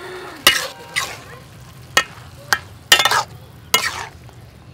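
Metal spatula scraping and knocking against a wok while soybeans, ginger and carrot are stir-fried, about six strokes spaced unevenly, with faint frying underneath.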